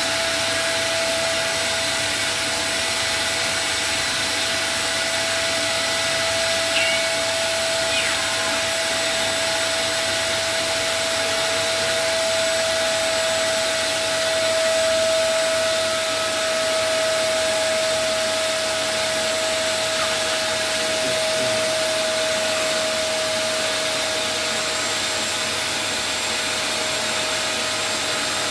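Wet/dry shop vacuum running steadily with a constant whine, pulling the wrap film down onto the steering wheel by suction. It swells slightly about halfway through, and a couple of faint clicks come about a quarter of the way in.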